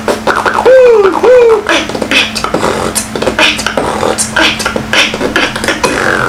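A man beatboxing: rising-and-falling pitched vocal sweeps for the first second and a half, then a rhythmic run of sharp mouth-made clicks and drum hits, several a second.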